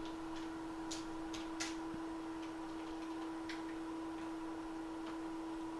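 Light, scattered ticks of a soldering tip and tools touching the pins of a USB-C port being soldered onto a phone board, over a steady electrical hum from the soldering bench equipment.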